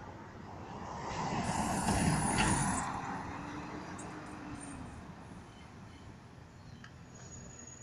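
A vehicle passing by out of sight: its road noise swells over the first two seconds or so, then fades away slowly.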